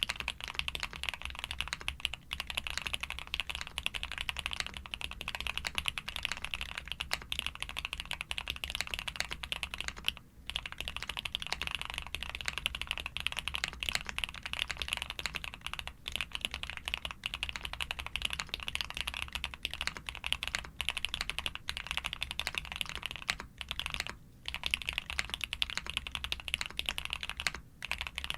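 Continuous typing on a Suit80 custom mechanical keyboard with a POM plate, full foam, DMK keycaps and switches built from Cherry top housings with SP-Star white parts, the keystrokes in a dense, steady stream with a few brief pauses.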